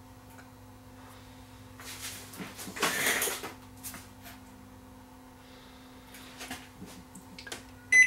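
Hands working the front of a Panasonic inverter microwave: a scuffing rub about three seconds in, a few light taps, and a short high beep from the oven's keypad at the very end, over a steady low electrical hum.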